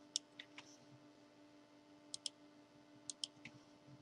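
Faint clicking at a computer, a few quick pairs of clicks, over near silence with a faint steady hum.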